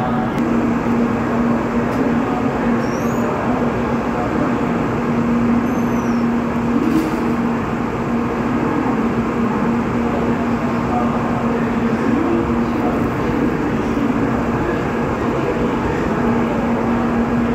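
Shinkansen train running slowly on an empty move into its depot, heard from on board: a steady running noise with a constant low hum.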